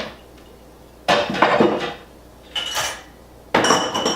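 Dishes and cutlery clinking and clattering as a dishwasher is unloaded: three separate bursts, some with a short ringing note from struck dishware.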